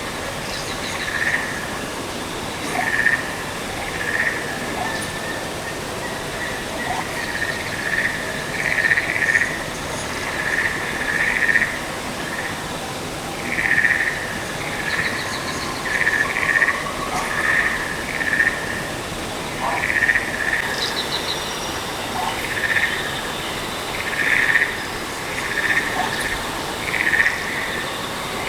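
Frog-like calls: short buzzy croaks, each about half a second long, repeating irregularly every second or two over a steady hiss of falling water. A few faint high chirps are mixed in.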